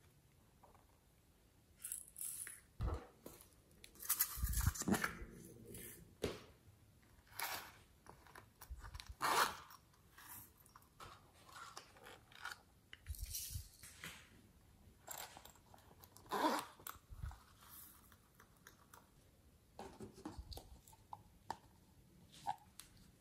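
Hands handling small toys and clay close to the microphone: irregular crackling, snapping and tearing noises, in clusters with short quiet gaps.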